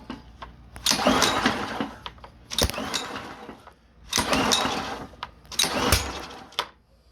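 Honda pressure washer's small engine being pull-started four times, each recoil pull turning it over for about a second, with a single sharp pop on two of the pulls but no running: the engine only fires once in a while and won't catch.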